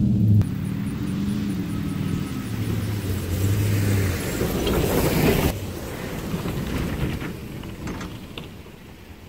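A full-size truck's engine running as it drives across the grass, with a rushing noise that builds as it comes close and cuts off suddenly about five and a half seconds in. After that a fainter engine sound fades away.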